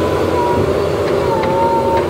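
JCB 3DX Super backhoe loader's diesel engine running under load, with a high whine from the hydraulics that wavers up and down in pitch as the backhoe arm moves a big log.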